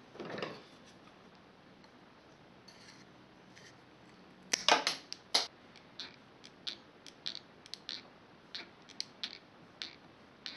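Handling sounds on a wooden tabletop: a soft rustle at the start, a cluster of loud knocks and clicks a little before halfway, then a string of short sharp clicks, one or two a second, as a hot glue gun's trigger is squeezed.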